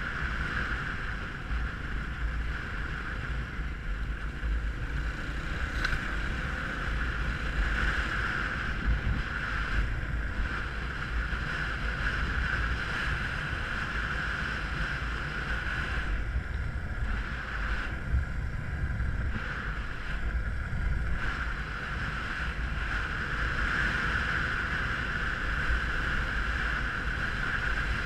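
Dirt bike engine running under way on a rough track, with wind buffeting a helmet-mounted camera's microphone; the engine note drops back briefly a few times about two thirds of the way through.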